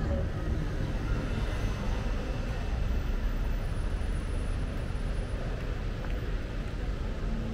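Steady street traffic noise: the low rumble and hiss of city traffic, with no single event standing out.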